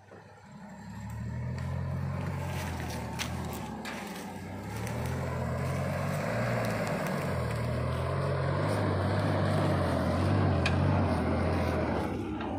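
Old Toyota Land Cruiser hardtop 4x4, loaded with sawn timber, crawling in low gear with its engine revving up and down, growing louder as it comes close. A few sharp snaps of sticks breaking under the tyres.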